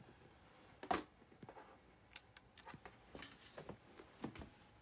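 Faint, scattered light clicks and scratchy rustles of a cat's claws and body on a carpeted ledge, with one sharper click about a second in and a run of small ticks later.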